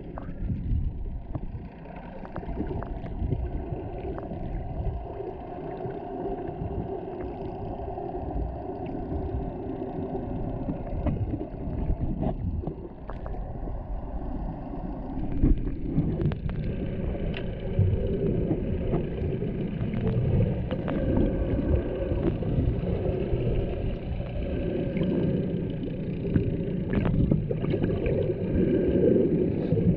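Underwater sound picked up by a GoPro in its housing while snorkeling: a muffled rumble of moving water with a steady low drone and scattered sharp clicks.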